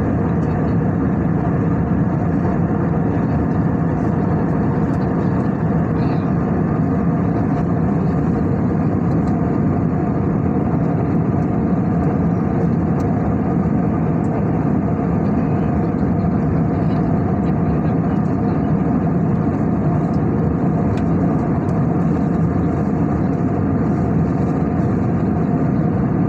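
Steady cabin noise of an Airbus A320neo in cruise, heard inside the cabin: the constant rush of air over the fuselage mixed with the even drone of its CFM LEAP-1A engines, with a faint steady hum.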